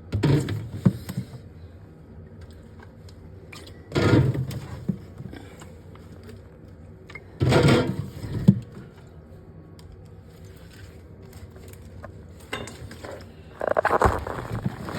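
Clatter and rustle of containers and other objects being handled, in four separate bursts a few seconds apart.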